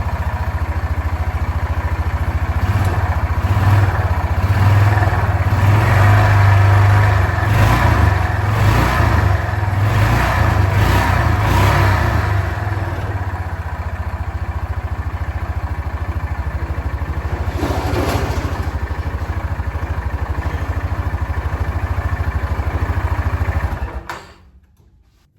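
Yamaha Rhino 450's single-cylinder engine running with a thicker oil mix added to quiet a knock that the owner expects to need a rebuild. It runs louder and higher for several seconds early on, settles to a steady idle, and is shut off a second or so before the end.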